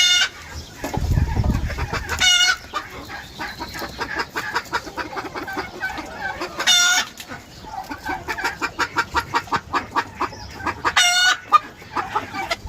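A flock of chickens clucking, with four short, loud calls rising above the chatter at intervals of a few seconds.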